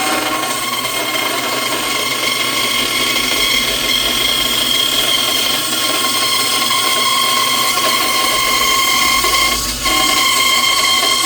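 Scroll saw running steadily as it cuts a wooden workpiece, with a steady high whine over the cutting noise; the sound dips briefly near the end.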